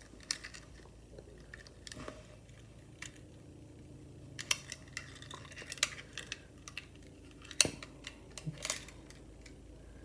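Scattered small clicks and scrapes of a metal belt clip pressed and pushed against the plastic back of a garage door remote, which it won't slide into; the sharpest click comes late on.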